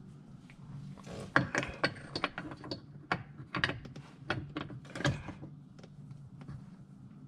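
Irregular clicks, taps and rattles of small metal hardware being handled: a mirror clamp and its screw fitted by hand around a roll bar. A steady low hum runs underneath.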